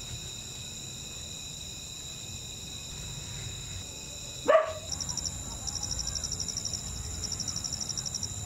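Night insects trilling steadily in high tones; about halfway through, a single short, loud animal cry breaks in, and then a rapidly pulsing high insect trill starts up.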